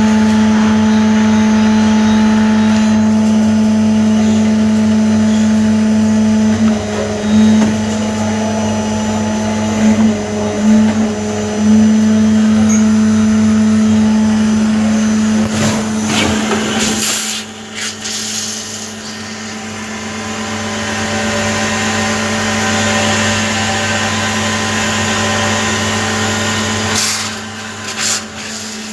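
A machine tool running steadily, a motor hum with several fixed pitches. About two-thirds of the way through the sound changes and grows quieter, with a few short rattles around then and again near the end.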